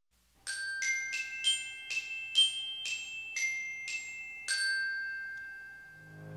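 Musical logo sting of bright, bell-like mallet notes: about ten struck notes at roughly two a second, the last one ringing on and fading away.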